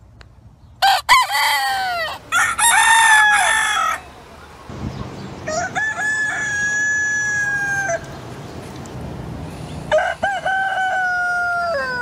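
Roosters crowing: three long crows, the first about a second in, the others midway and near the end, each ending in a held note that drops away.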